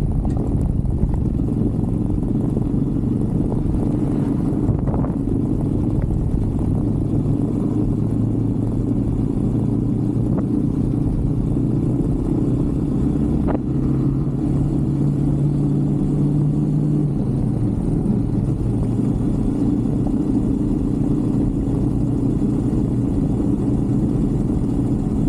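125cc Brixton motorcycle engine running steadily under way, its note rising briefly about two-thirds of the way through before settling back.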